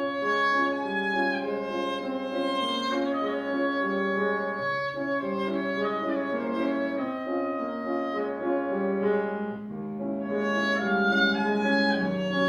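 A wind quintet playing chamber music: several instruments hold overlapping notes that change together in chords.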